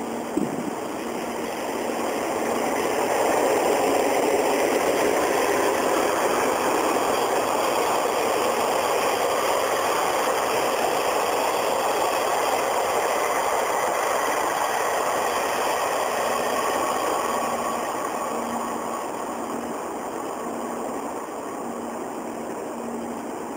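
The overnight express Ginga, a locomotive-hauled sleeper train, passing by: its running noise swells over the first few seconds, stays loud through the middle and eases off near the end. A short knock comes just after the start.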